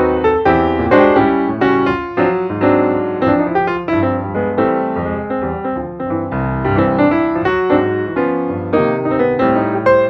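Background piano music, a steady stream of plucked-sounding notes and chords at a lively pace.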